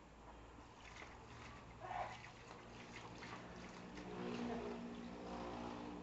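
Faint trickling of water from a garden hose filling an inflatable paddling pool. A faint steady hum joins about four seconds in.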